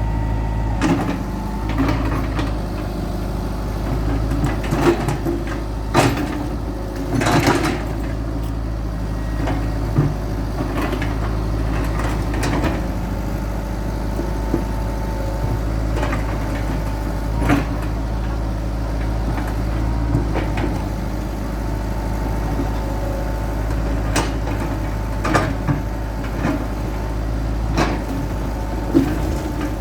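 Hitachi EX100-2 hydraulic excavator's diesel engine running steadily under work, with irregular sharp clanks and knocks from the digging, several of them close together about six to eight seconds in.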